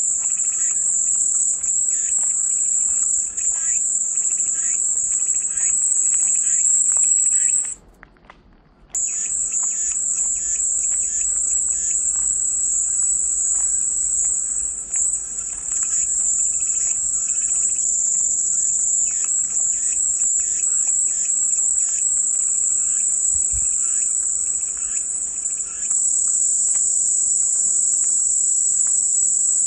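Cicadas droning steadily in a loud, high-pitched buzz that cuts out for about a second near the start and then resumes. Faint chirps sound beneath it.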